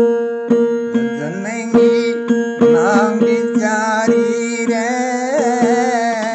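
Devotional bhajan music: a steady drone under a hand drum beating about twice a second. A wavering melody line slides upward about a second in and carries on over the drone.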